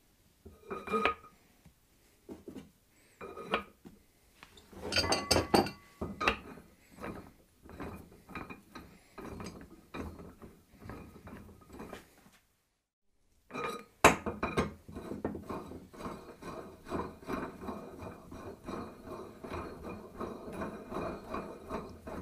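Clinking and clattering as spacers, an alignment disc and a locking nut are set onto the threaded center post of a Pittsburgh Automotive mini tire changer. After a brief silent gap, a steady rapid rattle follows as the locking nut is spun down the threaded post to clamp the wheel.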